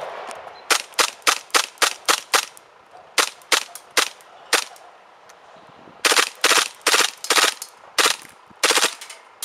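Airsoft H&K MP7 A1 gas blowback gun firing on single shot, sharp cracks each with the clack of the blowback bolt. About twenty shots come in three quick strings of roughly three to four a second, with short pauses between.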